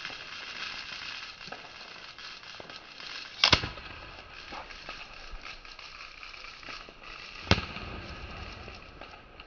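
Two aerial firework shells bursting with sharp loud bangs about four seconds apart, over steady crackling of fireworks.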